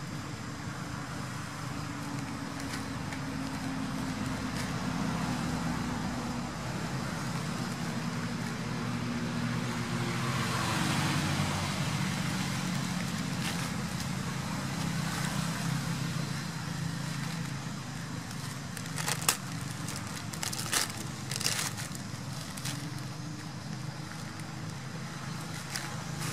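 A motor vehicle engine running steadily, growing louder about ten seconds in and then easing off. A few sharp clicks come near the end.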